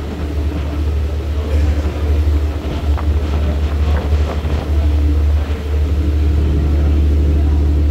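Steady low rumble of motor traffic, with a few faint knocks around the middle.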